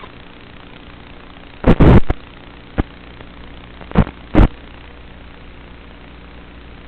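Steady hiss and hum on an FPV DVR recording's audio track, broken by loud crackling pops: a cluster a little under two seconds in, a single click shortly after, and two more pops about four seconds in.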